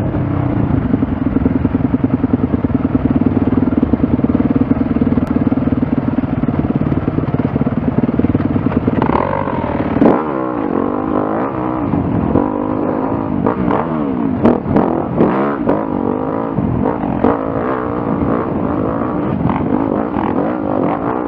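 2015 Yamaha YZ250F four-stroke single-cylinder dirt bike engine running while riding: a steady drone for about the first nine seconds, then revving up and down with the throttle. A few sharp knocks come through around ten and fifteen seconds in.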